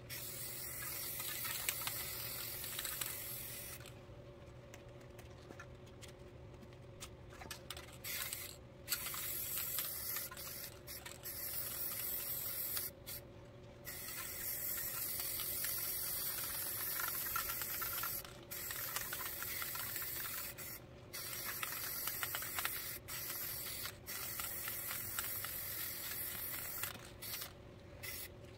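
Rust-Oleum Ultra Cover aerosol spray paint can hissing in repeated bursts of one to several seconds, with short pauses between passes.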